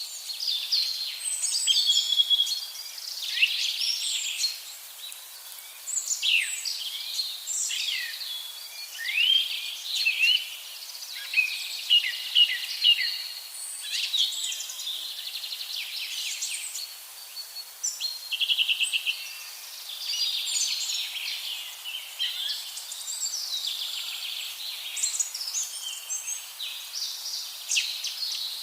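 Several songbirds singing, with overlapping whistled phrases, chirps and quick trills, one fast trill about two-thirds of the way through.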